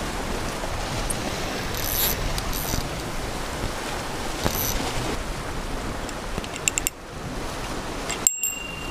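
Surf washing against a lava-rock shoreline, a steady noisy wash, with a few light clicks from the fishing rod, reel and line being handled.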